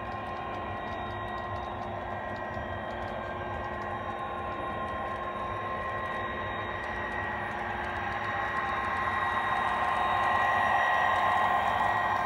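HO-scale Santa Fe GP35 model's TCS WOW sound decoder playing a running EMD diesel engine through its small speakers: a steady drone with held high tones, growing louder in the last few seconds as the locomotive comes close.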